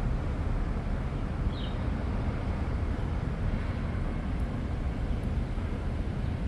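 Steady low outdoor rumble, heaviest in the bass, with a brief faint high chirp about a second and a half in.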